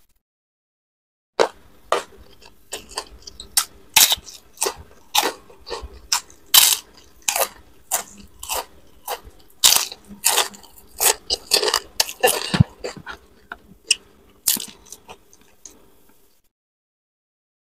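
Close-miked crunchy chewing and biting of crisp fried food and a cracker, a rapid run of sharp crunches several times a second. The crunching starts about a second and a half in and stops shortly before the end.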